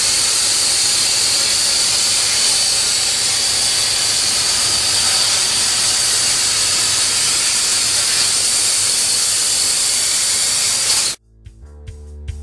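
CNC plasma torch cutting steel plate: a loud, steady hiss with a thin high-pitched whine, stopping abruptly about a second before the end, where music with drums takes over.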